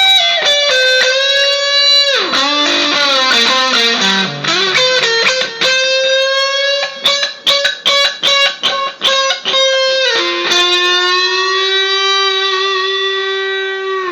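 Electric guitar played through a Vox amPlug Classic headphone amp with a gritty, overdriven tone. Sustained lead notes with a sharp downward bend about two seconds in give way to a run of quickly picked notes, then one long held note near the end.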